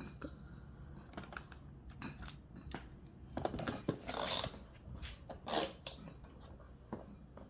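Small hard toy-car parts being handled and fitted: scattered clicks and taps, with a few louder scraping rubs about halfway through.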